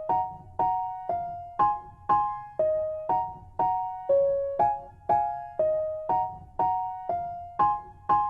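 Background music: soft piano or electric piano playing gentle chords, a new chord struck about twice a second and each one fading away.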